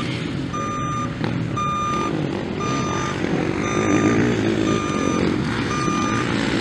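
Skid-steer loader's reversing alarm beeping steadily about once a second, over the running engines of motocross bikes on the dirt track.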